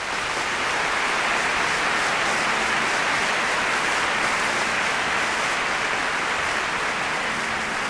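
Audience applauding steadily at the end of an orchestral piece, easing slightly near the end.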